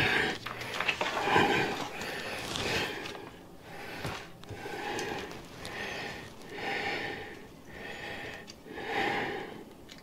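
A man breathing heavily from effort as he pulls and stretches a stiff airless tire onto a small rim, with a series of audible breaths about a second apart.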